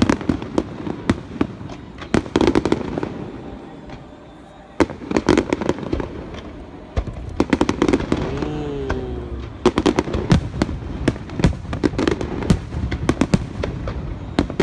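Aerial fireworks display: a dense run of shell bursts and crackling pops, easing off briefly about four seconds in before picking up again.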